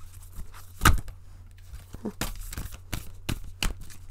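Oracle cards being shuffled by hand: an irregular run of sharp card snaps and slaps, the loudest about a second in.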